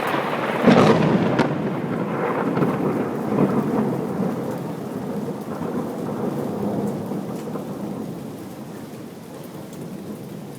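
A long rolling peal of thunder that builds up, is loudest about a second in, then rumbles on and slowly dies away over several seconds, with steady rain throughout.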